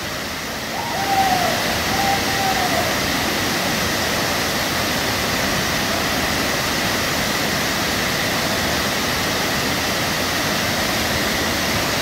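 Wide waterfall pouring into a plunge pool: a steady, even rush of falling water. From about a second in, a faint drawn-out call sounds briefly over it.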